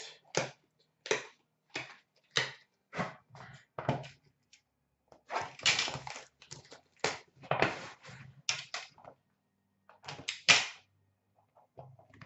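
Upper Deck Splendor hockey card box and its packaging handled and opened by hand: a run of short taps and clicks about every half second, then a busier stretch of knocks and scraping for a few seconds, and a few more clicks near the end.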